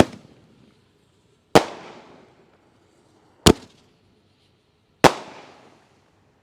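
Dominator Pro consumer firework artillery shells going off: four sharp bangs spaced about one and a half to two seconds apart, most trailing off in a short echo.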